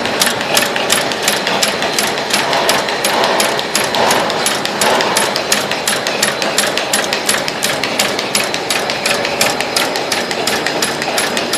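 A paper cutting and folding machine for ceiling fan and motor insulation paper running, clacking in a steady rapid rhythm of several strokes a second.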